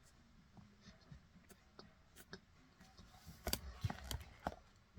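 Crunching and chewing of cornstarch: scattered faint clicks, then a quick run of sharper, louder crackles about three and a half seconds in.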